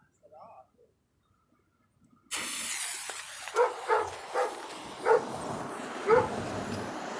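A dog barking about five times over a steady hiss that starts suddenly a couple of seconds in, a ground firework fountain spraying sparks.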